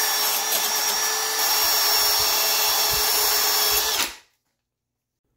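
Electric drill spinning a wire wheel brush against an aluminum bar, scrubbing the oxide layer off before brazing: a loud, steady whine that stops about four seconds in.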